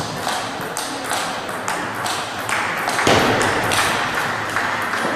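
Table tennis ball struck back and forth in a rally, a run of sharp clicks off the rackets and table. From about three seconds in, a louder noisy haze rises under the clicks.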